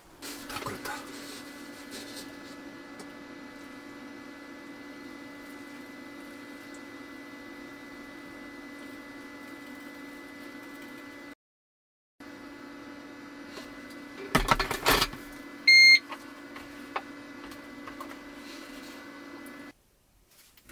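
Steady electrical hum from a portable power station running an electric kettle, with a brief clatter about fifteen seconds in and a short, loud beep just after.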